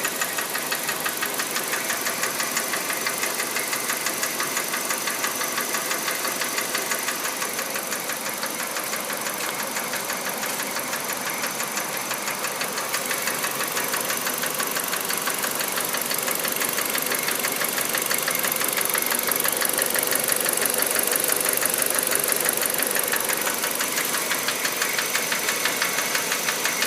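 Kia Rio's 1.4-litre G4EE four-cylinder petrol engine running with a fast, regular ticking knock, which the owner thinks may be a hydraulic lash adjuster (lifter).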